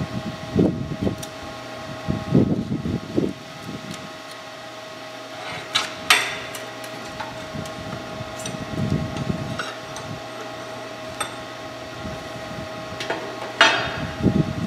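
Metal parts knocking and clinking as they are handled, with two sharper metallic clinks, over a steady hum.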